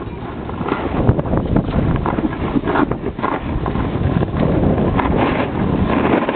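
Wind buffeting the camera's microphone, a dense rumbling noise, with irregular short rustles from snow or handling as the camera moves across the snowy slope.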